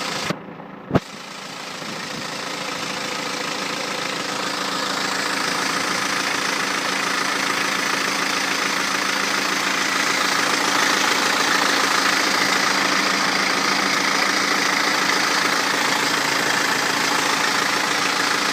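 BMW 320d's N47 four-cylinder diesel engine running, with a sharp click about a second in after a brief drop. The engine noise carries the chain noise that the owner suspects comes from the original timing chain at almost 180k.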